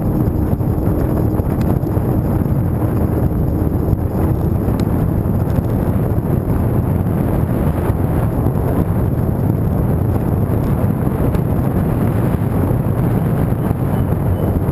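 Wind buffeting the microphone of a camera riding along on an electric bike climbing under throttle: a loud, steady rumble. A faint steady whine fades out about four seconds in.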